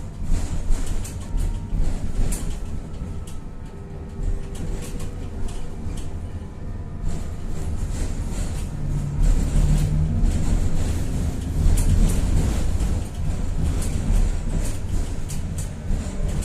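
Tatra-Yug K1M tram running, heard from inside the car: a steady low rumble of wheels on rails, with many short clicks and knocks and a few brief steady tones.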